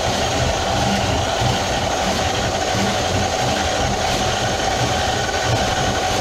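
Electric drum-type drain machine (RIDGID K-45 sink machine) running steadily, spinning its cable down a clogged kitchen sink drain; a steady whine over a low rumble.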